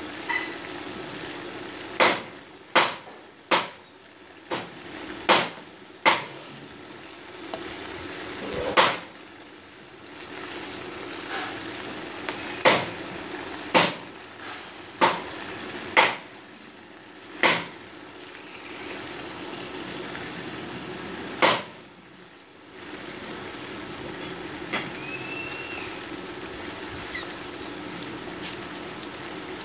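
Chicken pieces sizzling in hot oil in a nonstick frying pan. Over the first two-thirds, a series of sharp clicks comes from metal tongs knocking against the pan and each other as the pieces are turned.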